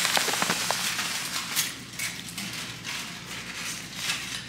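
Rustling and crackling of takeout food packaging being opened by hand, with scattered sharp clicks, busiest in the first second.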